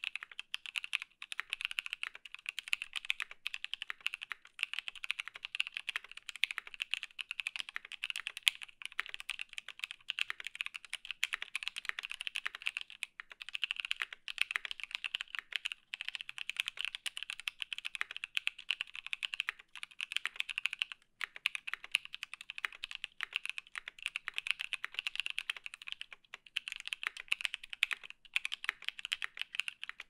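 Continuous typing on a Volcano660 mechanical keyboard fitted with lubed Paco switches in a brass plate, ePBT Kuro Shiro PBT keycaps and no sound dampening: a dense run of crisp keystroke clacks with a few short pauses.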